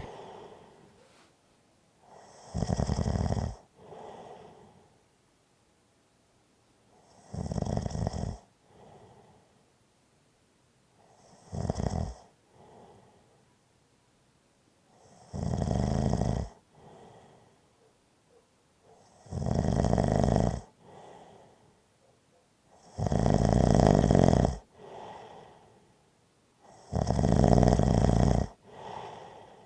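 A person snoring steadily: a loud snore about every four seconds, seven in all, each followed by a softer, shorter sound.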